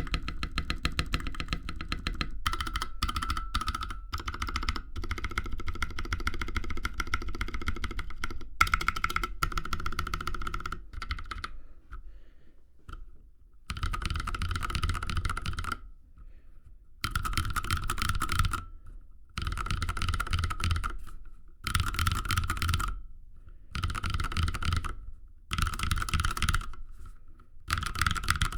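Typing on a custom 65% mechanical keyboard with lubed Holy Panda tactile switches in an aluminium case with a brass plate, giving a thocky sound. Fast continuous typing for the first ten seconds or so, then short bursts of keystrokes with brief pauses between them.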